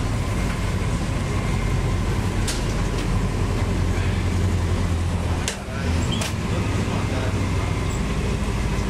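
Marcopolo Torino city bus running under way, heard from inside, a steady low engine drone. About five and a half seconds in the engine sound drops off briefly, then picks up again, with a few light clicks and rattles from the bus.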